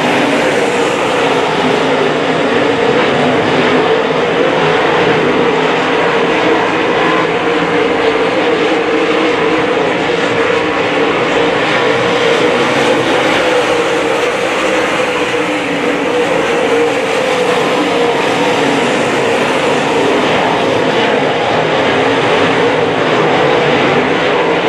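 A field of dirt modified race cars with V8 engines running around the track, their engines a loud, steady mass of sound.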